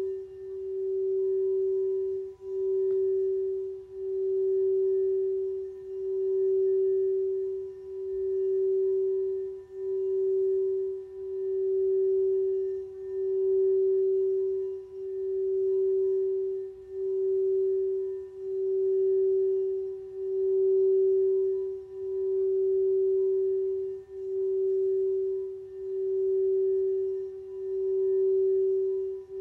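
Singing bowl sustaining one steady mid-pitched tone with faint higher overtones, its sound swelling and fading in a slow pulse about every two seconds.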